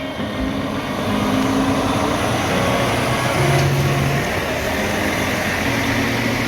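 Heavy truck's diesel engine running steadily as the truck drives off.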